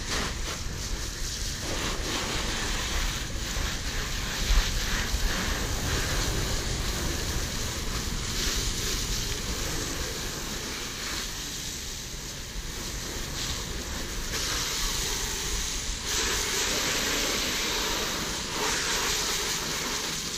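Garden hose with a brass jet nozzle spraying a strong stream of water onto a car's paint, rinsing off soap: a steady splashing hiss that shifts as the jet sweeps across the body panels and rear bumper.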